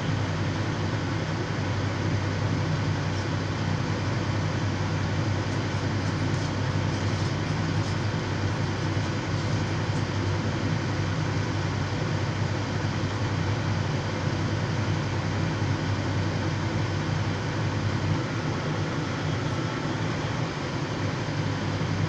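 Heavy diesel engines of a Volvo EC950E large crawler excavator and a Caterpillar 772G haul truck running steadily at work, a deep even drone with no break as the excavator loads the truck.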